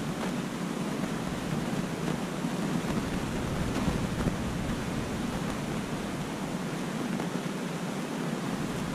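Aquarium water circulation running: a steady rush of moving water and bubbles, even throughout with no pauses.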